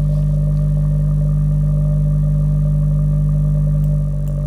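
iK Multimedia iLoud Micro Monitor speakers playing a steady 50 Hz test tone, buzzy with overtones and air turbulence from the bass-reflex port: the port noise these speakers show most at 50 Hz. The tone dips slightly about four seconds in, with a couple of faint clicks near the end.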